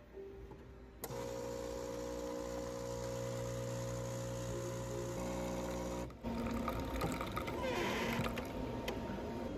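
Franke automatic coffee machine brewing into a cup. A steady mechanical hum starts about a second in and stops about six seconds in, then gives way to a noisier hiss as the drink is dispensed.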